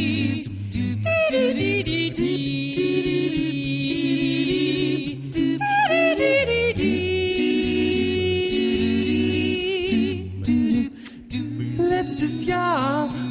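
Mixed a cappella vocal quartet singing without instruments: a deep bass line under held harmonies, a high voice with wide vibrato on top, and short percussive clicks keeping the beat. The singing drops away briefly about eleven seconds in.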